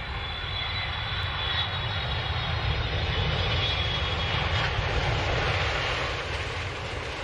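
Airplane engine sound effect: a steady jet rush with a deep rumble underneath, beginning to fade away near the end.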